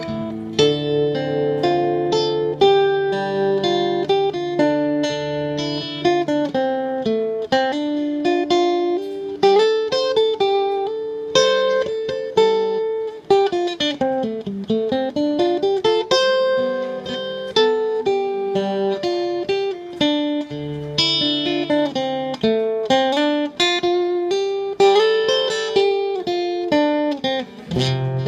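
Acoustic guitar music, a melody of plucked notes with a quick run down and back up about halfway through, played back through homemade speakers built into metal ammo cans.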